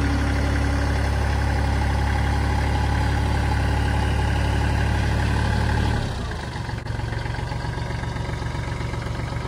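Kubota L3130 tractor's diesel engine running steadily while the front loader lowers its bucket. About six seconds in, the engine drops to a lower, quieter idle.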